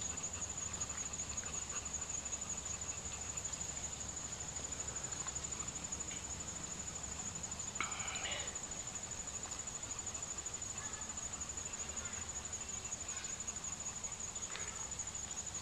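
A steady, high-pitched insect chorus drones on without a break, over a low background rumble. A brief sharp sound breaks in about eight seconds in.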